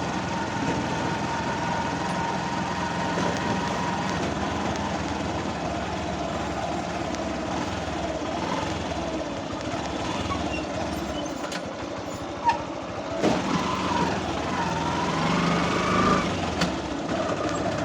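A vehicle engine running steadily, with a couple of sharp knocks and a few short wavering tones in the last few seconds.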